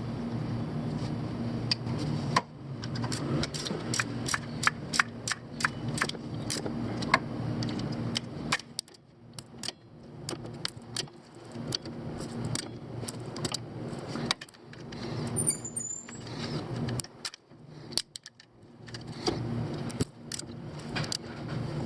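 Sharp metallic clicks and clinks, coming several a second for a few seconds and then more scattered, typical of hand tools being worked on metal. A steady low hum sits under the first couple of seconds and comes back near the end.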